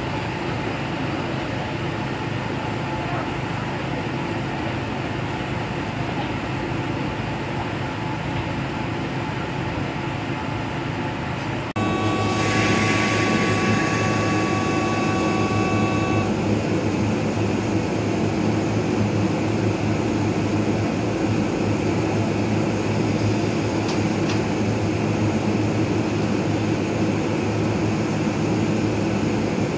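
Steady rail-station background noise while a train approaches in the distance. After a cut about twelve seconds in, a louder steady hum from an orange-and-white Kintetsu limited express train standing at the platform, with a few thin high tones for about four seconds.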